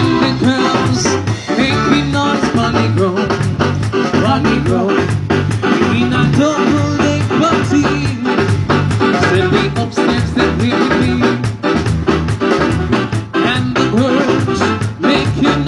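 Band music with a steady beat: drum kit, electric bass and keyboards, with a woman singing.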